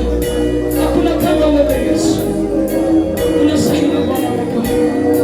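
Church worship music: sustained held chords with a tambourine jingling on a steady beat, about two strokes a second, and some singing.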